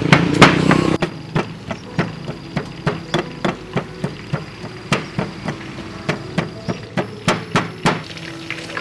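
A pestle pounding in a stone mortar, knocking steadily about three times a second from about a second in, over a low steady hum.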